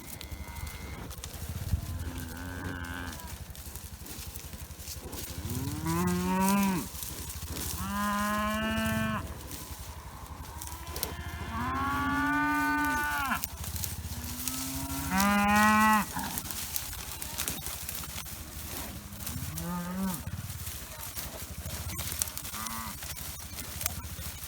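Cattle mooing, about five long bellows a few seconds apart, with fainter calls from farther off in the herd.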